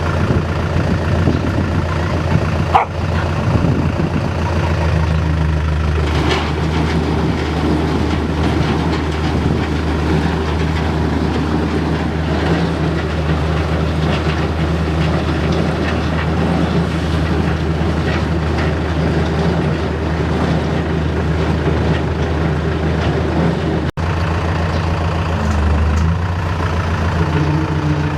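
Tractor engine running steadily under load, a continuous low drone that briefly cuts out once near the end.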